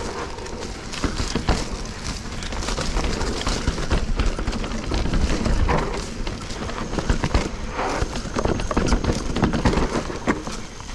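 Full-suspension mountain bike ridden over rough trail: a dense run of irregular knocks and rattles from the tyres hitting roots and rocks and the frame and chain shaking, over a steady low rumble.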